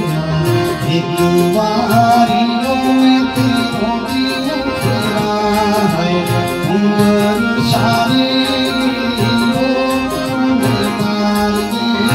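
Man singing a Pahari sad folk song (dukhi mahiye) in a sustained, wavering voice, over melodic instrumental accompaniment and a steady percussion beat.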